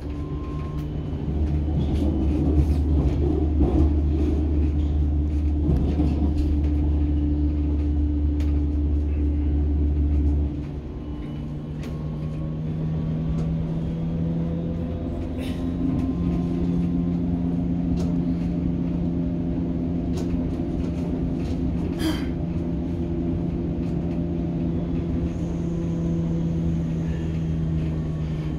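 DT5 U-Bahn train running on open track, heard from the driver's cab: the rumble of wheels on rail under a steady electric hum and a faint motor whine. A strong deep hum cuts off suddenly about ten seconds in and the sound grows quieter, with a sharp click about two-thirds of the way through.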